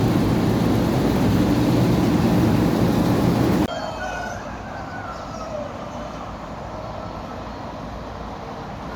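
A loud, steady rushing noise cuts off abruptly a little under four seconds in. After it, a rooster crows among chickens, in a series of falling calls.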